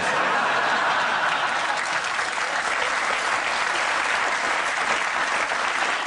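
Audience applauding: dense, even clapping that starts abruptly and holds steady.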